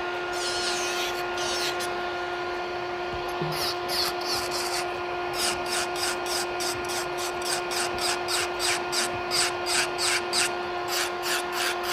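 Electric nail file (e-file) with a ceramic bit running with a steady whine while it files an acrylic-and-gel nail. From about five seconds in, the bit is swept back and forth over the nail in quick rasping passes, about two or three a second.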